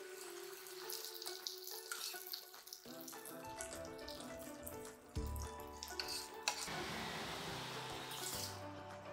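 Thick cooked mixed dal being spooned into a nonstick pan: wet, sloppy plops and a few sharp knocks of the spoon against the pan, under steady background music.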